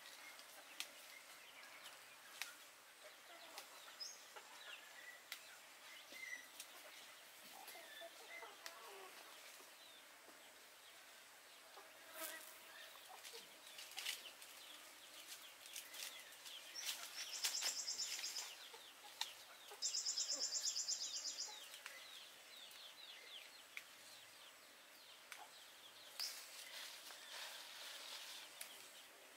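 Betel leaves being picked by hand: scattered small snaps and rustles of stems and foliage, with chickens clucking faintly in the background. About two-thirds of the way through come two short bursts of high, pulsing insect buzzing, the loudest sounds.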